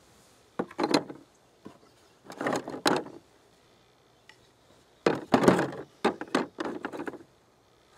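Thin slabs of shale clattering and knocking against one another and against the inside of a plastic bin as they are set down and lifted out. The handling comes in four short bursts of knocks with quiet gaps between them.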